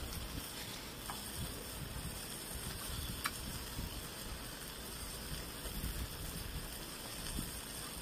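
Pork belly sizzling in a pan with a steady hiss, under soft chewing and two light clicks.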